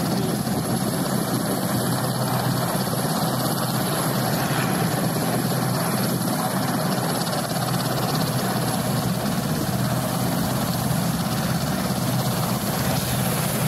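RAF Westland Sea King helicopter's twin turboshaft engines and rotors running steadily while it sits on the ground with its rotors turning.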